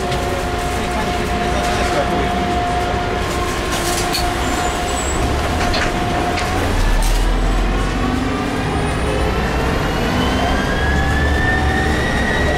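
Articulated diesel city bus heard from inside, engine and drivetrain running with a steady whine. From about halfway a whine climbs slowly in pitch as the bus picks up speed.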